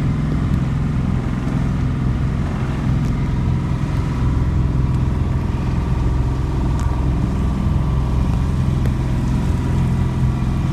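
Motorboat engine running steadily under way: a constant low drone with a faint, steady whine higher up.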